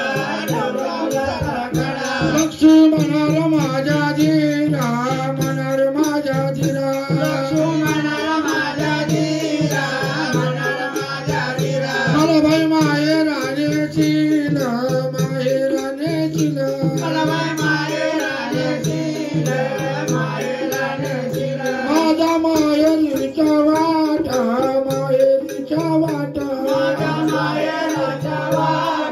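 A man sings a Marathi devotional folk song to the goddess Kalubai through a microphone, over the steady drone of a one-string tuntuna and quick rattling hand percussion.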